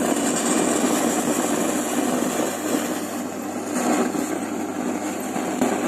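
iBall Tarang 2.1 home theater speaker system giving out a loud, steady hiss-like noise with no audio playing. The noise comes from a faulty TDA2030 amplifier IC.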